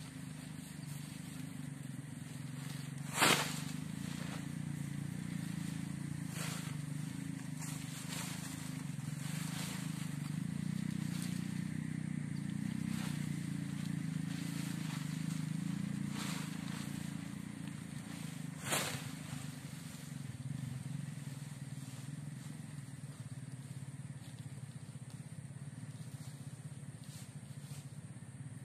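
Polyethylene tarp being unfolded and shaken out, rustling and crinkling, with two sharp snaps, one a few seconds in and one about two-thirds of the way through. A steady low hum lies under it throughout.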